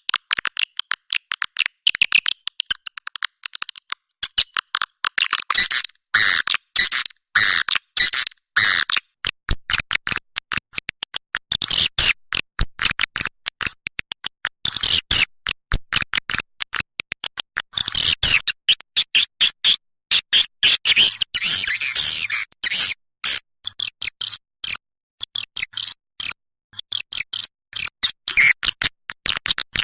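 Swiftlet calls as used to lure birds into a swiftlet house: dense, rapid, high chirps and twitters in short bursts with many brief gaps.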